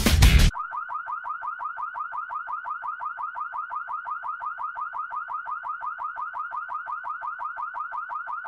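Car alarm siren sounding a short rising chirp over and over, about six a second, starting abruptly about half a second in.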